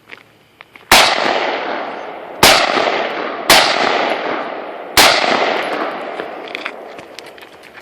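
Four gunshots, about a second to a second and a half apart, each followed by a long echo that dies away slowly.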